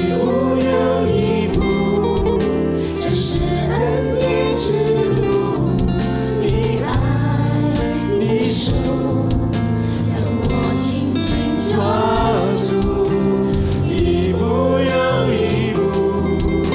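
Cantonese Christian worship song, several voices singing a slow melody together over sustained instrumental accompaniment.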